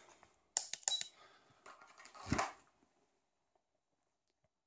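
A quick run of sharp clicks and knocks with a short high beep about a second in, then a single louder thump a little after two seconds.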